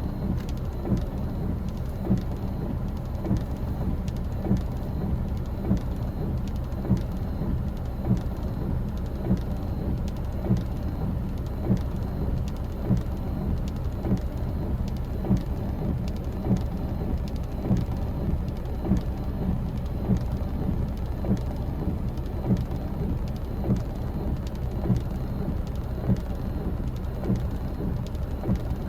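Steady rush of wind and ocean surf, heavy in the low rumble, with a sharp tick recurring about every second and a quarter.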